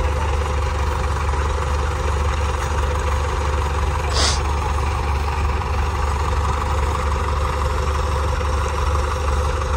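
Diesel tractor engines idling steadily, with a brief hiss about four seconds in.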